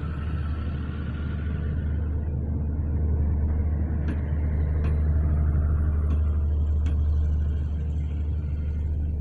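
Passenger train coaches rolling slowly past into a station, a steady low rumble that swells toward the middle. A few sharp clicks of wheels over rail joints sound in the middle.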